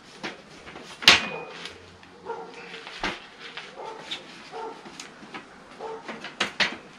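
A dog barking in short calls about once a second, with a sharp knock about a second in and two quick clicks near the end.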